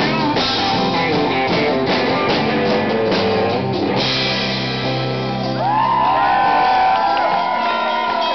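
Live rock band playing loudly: hard-strummed acoustic guitar, electric bass and drum kit with cymbals. About four seconds in the cymbal crashes stop, and long high guitar notes that bend up and down ring over the band.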